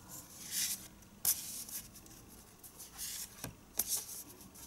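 Cardboard art cards being handled: rustling and sliding, with a few sharp taps as they are laid down, about a second in and again after three seconds.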